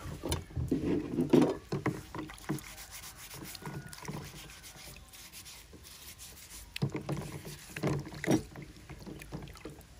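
Water splashing and sloshing in a plastic basin as hands scrub eggs clean, with the eggs rubbing and knocking together. The splashing is loudest in the first two seconds and again around seven to eight seconds in.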